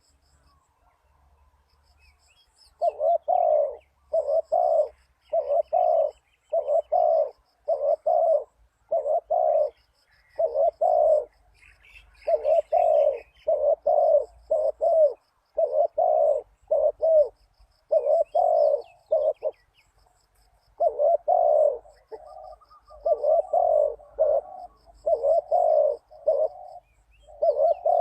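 Spotted dove cooing repeatedly in short groups of two or three low notes, starting about three seconds in, with faint high chirps of small birds behind.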